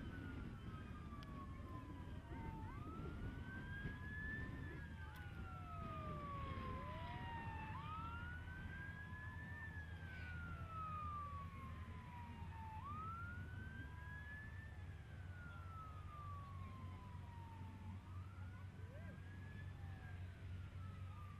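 Airport fire truck siren wailing: each cycle rises quickly and falls slowly, about every five seconds, with a second, lower siren wailing out of step beneath it. A steady low rumble runs underneath.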